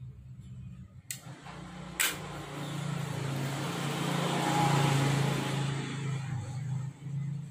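Two sharp clicks from the glass-and-metal phone case being handled, then a passing motor vehicle whose noise swells and fades over a few seconds above a steady low hum.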